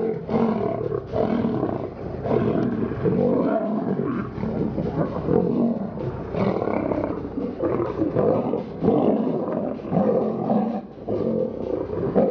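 Lions roaring without pause during a fight between males, the sound rising and falling in rough, overlapping bursts.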